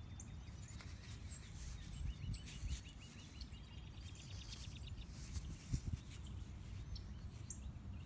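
Small birds chirping, with a quick run of repeated chirps through the middle, over a steady low rumble of wind on the microphone.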